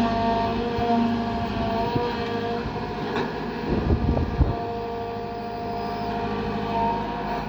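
Kobelco SK120 excavator's diesel engine running steadily, several held tones over a low rumble. A short cluster of knocks comes about three to four and a half seconds in.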